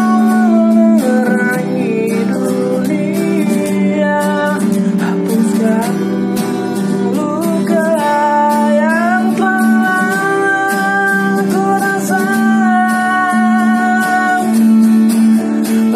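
Music: a guitar played throughout, with a melody of long held notes that slide up and down between pitches over it.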